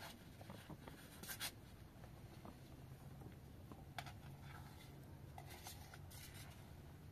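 Faint rustling and scratching of flatbread being torn by hand, with a few small clicks from food being taken from a metal tray; one sharper click about four seconds in.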